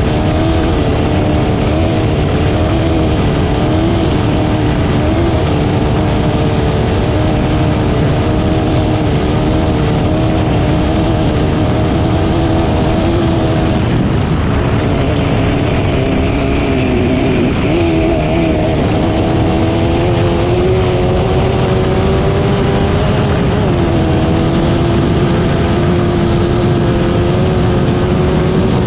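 Racing engine running hard and continuously through a qualifying run, its pitch mostly held high with small wavers, dipping and recovering about two-thirds of the way through, then settling at a steady note.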